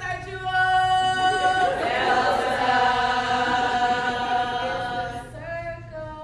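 Group of women singing a chant in unison, a cappella, holding long notes.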